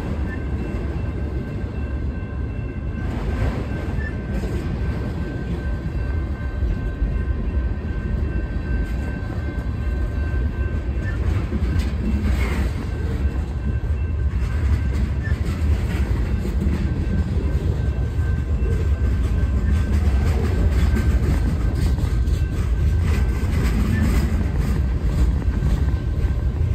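Freight train cars rolling past on the rails: a steady low rumble with wheel and car clatter, growing a little louder in the second half.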